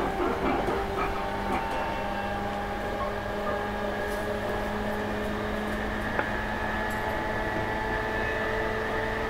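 Interior noise of a commuter train car: the steady rumble and hum of the train running, with one sharp click about six seconds in.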